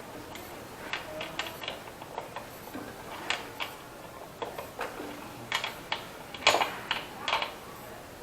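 Irregular metallic clicks and knocks of hand tools and parts being worked on the top end of a Honda CG motorcycle engine while its tight upper bolts are loosened and the top part is pulled off.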